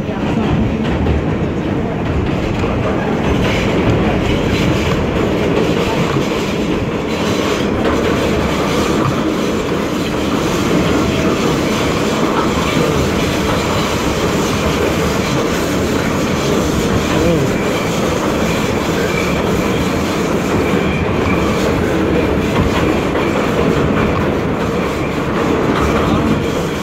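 R68 subway train running through a tunnel, heard from inside the car: a steady, loud rumble of wheels on rail. A faint high wheel whine comes in about twenty seconds in.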